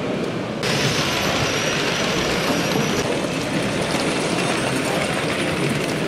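Model train running along a layout's track: a steady rolling rumble with hiss, which steps up and turns brighter about half a second in.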